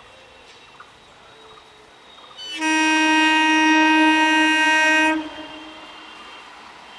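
Indian Railways EMU local train's horn sounding one long, steady blast of about two and a half seconds, starting about two and a half seconds in. Fainter running noise of the approaching train follows it.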